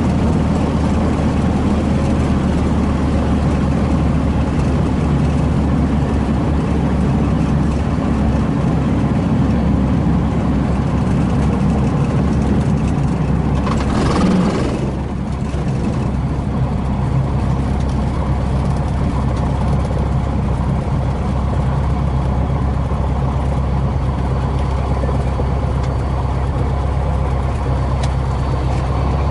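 Cessna 150H's four-cylinder Continental O-200 engine and propeller running steadily at low power as the plane rolls on the ground, heard inside the cabin. About halfway there is a brief hiss, and after it the engine note is a little quieter.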